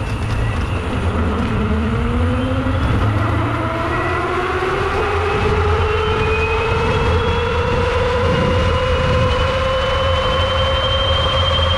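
A 12 kW electric hub motor whining as the e-bike accelerates, the whine rising steadily in pitch, over wind and tyre rumble.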